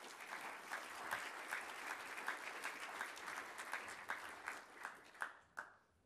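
Audience applauding. The clapping is dense, then thins to a few last claps and stops shortly before the end.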